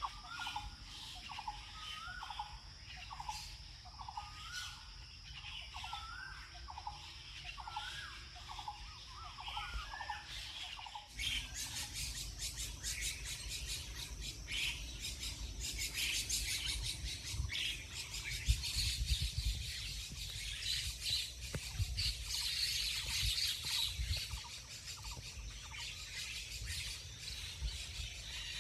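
Mixed birds calling in a dawn chorus: for the first ten seconds or so one bird repeats a short rising call about once a second over high twittering, then the sound changes abruptly to dense, high-pitched chirping over a low rumble.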